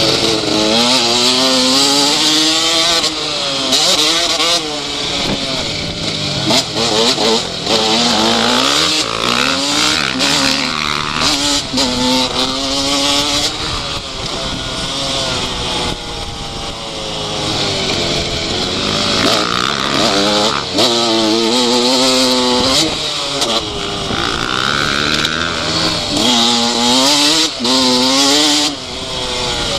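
KTM 125 two-stroke motocross bike's engine, heard from a camera on the bike, revving up through the gears and dropping off again and again as it is ridden around the track, over a steady rushing noise.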